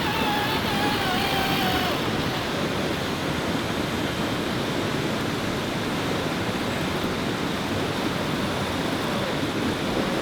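Steady rushing of flowing river water, an even noise without rhythm. A faint wavering tone sits over it for the first two seconds.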